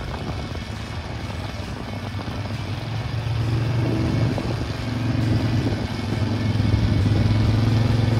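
Truck engine labouring at low speed over rough dirt, a steady low drone that grows louder about three seconds in as the truck comes closer.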